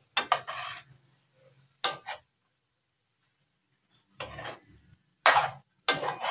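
A metal utensil scraping and clattering in a nonstick frying pan as beef and vegetables are stirred and tossed. It comes in about five short bursts with quiet gaps between them.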